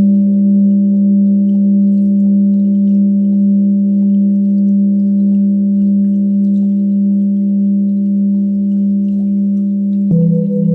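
Meditation singing bowl ringing with a steady, loud low tone and several higher overtones. About ten seconds in it is struck again, and a slightly lower tone with a slow wavering beat takes over.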